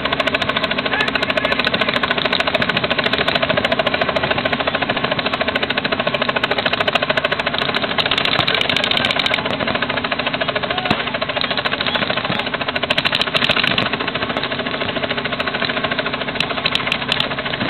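Paintball markers firing rapid, unbroken strings of shots, many shots a second.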